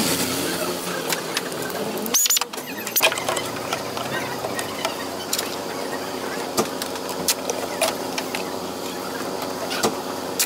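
Hyundai NF Sonata engine idling steadily, with scattered clicks and knocks from hands working the plastic air intake duct.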